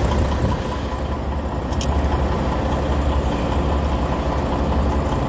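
Semi-truck diesel engines idling with a steady low rumble.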